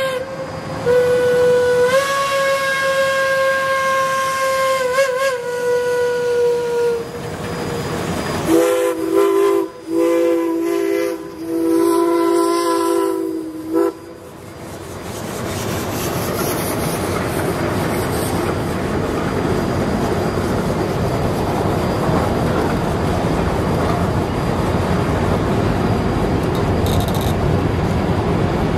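A Shay steam locomotive's whistle sounds one long single-note blast lasting about six seconds. Then a chime whistle sounds a chord in three blasts, the last one longest. After that comes the steady noise of freight cars rolling past on the rails.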